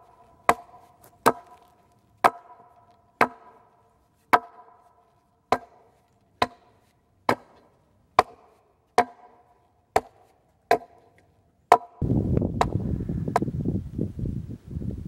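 Hatchet chopping into the end of a log fence post: about a dozen sharp blows, roughly one a second, each leaving a short ringing tone in the wood. About twelve seconds in, this gives way suddenly to steady wind noise on the microphone.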